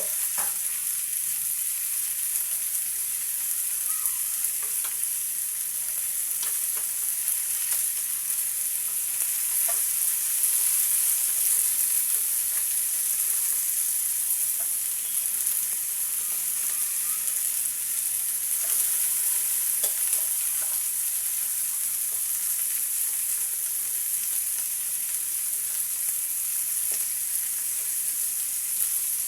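Fish frying in hot oil in a frying pan, a steady sizzle, with a few light clicks of a spatula against the pan as the pieces are moved.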